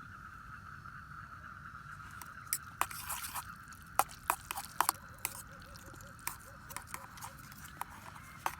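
Campfire crackling: irregular sharp pops and snaps over a steady high hum.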